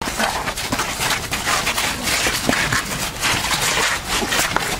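Close-range scuffle of several people grappling: clothing rustling and feet shuffling, with many irregular short knocks and bumps.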